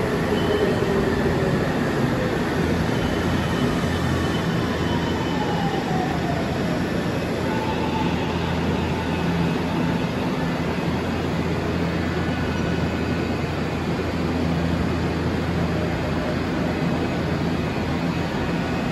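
Electric train sounds at a station platform: a steady low hum with a motor whine that slides down in pitch over the first several seconds.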